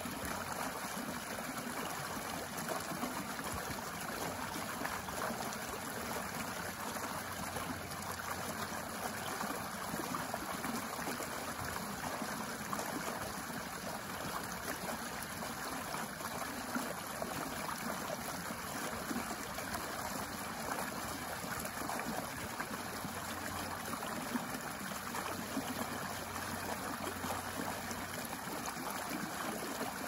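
A small, shallow stream running steadily, its water spilling over a low step into a shallow pool in an even, unbroken rush.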